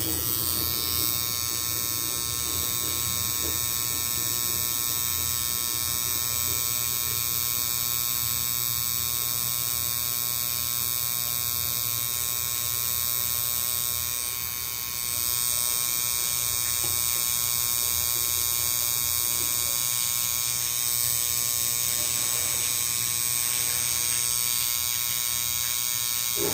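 A steady mechanical buzz with many fixed tones, from a low hum up to a high whine. It dips briefly about halfway through, then runs on unchanged.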